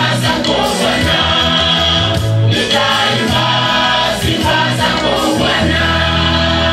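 Women's church choir singing a gospel song. A low, steady bass note comes in about five and a half seconds in.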